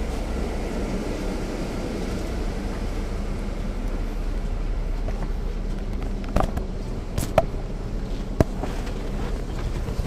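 Caterpillar C13 inline-six diesel of a NABI 40-foot transit bus running steadily, heard from the rear seats inside the cabin with the HVAC on. A few sharp clicks or rattles come between about six and eight and a half seconds in.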